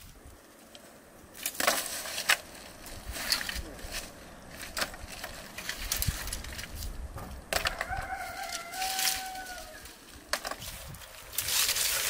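Dry brushwood branches crackling, snapping and scraping in irregular bursts as sticks are pulled from a pile of firewood. A rooster crows once, about two-thirds of the way through.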